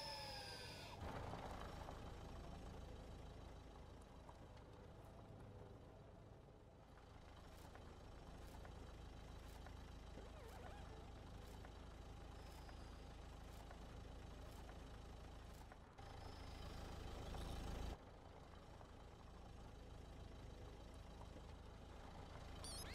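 Small robot rover's motor and wheels rolling over sand: a steady low rumble that swells louder for about two seconds roughly two-thirds of the way through. A few short falling electronic chirps are heard right at the start.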